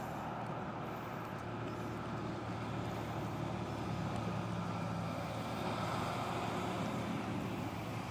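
Steady low engine hum, as of a distant motor running, under even outdoor background noise.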